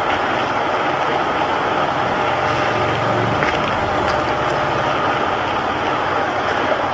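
Steady machine noise: a low engine-like hum under an even hiss, holding level throughout.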